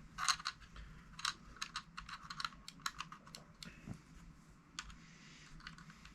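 Irregular light clicks and taps of small plastic parts and packaging being handled, about a dozen spread unevenly with a few louder ones near the start.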